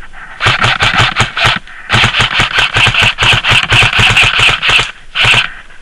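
Airsoft electric rifle firing full-auto in three bursts: a burst of about a second, a long one of about three seconds, then a short one, each a rapid even string of shots.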